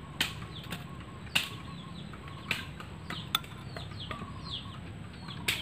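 A metal spoon clicking sharply against a ceramic bowl several times, about a second apart, as chopped onions are stirred by hand and spoon. Behind it, birds chirp with many quick falling notes.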